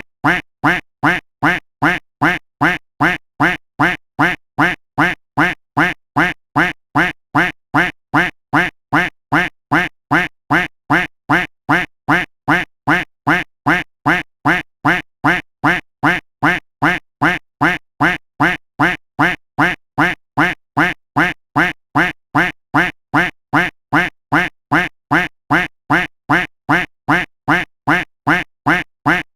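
A duck-quack sound effect repeated over and over in a steady loop, about two short quacks a second, evenly spaced and identical.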